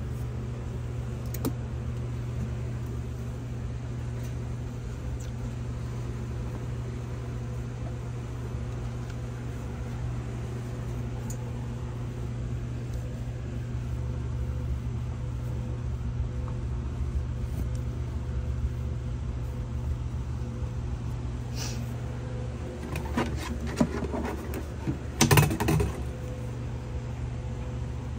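A steady low machine hum throughout, with a cluster of short knocks and clatters about three-quarters of the way in as bedding and a detergent pod are handled at a top-loading washing machine.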